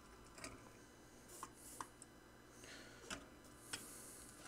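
Near silence with a few faint small clicks and a light rustle as a circuit board is handled and settled onto its pin header.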